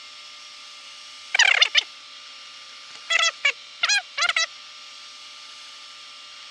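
Surface grinder running with a steady hum, broken by short, loud, warbling squawk-like bursts about a second in and again around three and four seconds in.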